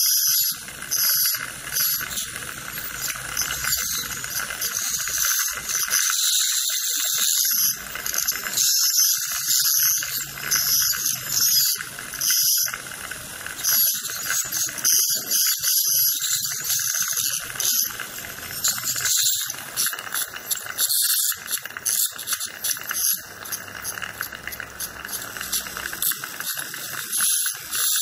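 Satelec piezoelectric ultrasonic dental handpiece with a diamond-coated Perfect Margin tip, finishing crown preparation margins on the teeth. A steady high whine runs under hissing and rattling that come and go in short bursts.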